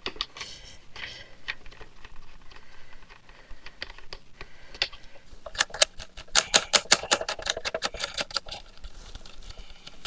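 A hand screwdriver working screws loose: quick, irregular light clicks, with a dense fast run of them in the second half.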